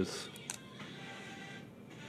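Quiet background music, with a brief crisp rustle of a trading card being handled about half a second in.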